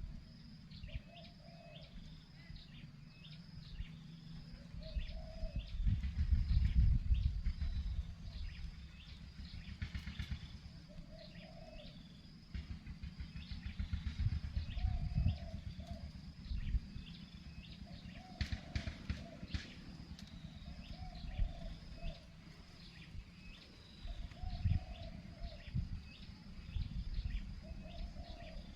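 Strong gusty wind buffeting the microphone, with short low bird calls every two to three seconds and steady high chirping behind.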